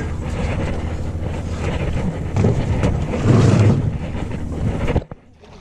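Wind buffeting the microphone on a small boat, a steady low rough noise that surges louder about three and a half seconds in. It cuts off abruptly near the end.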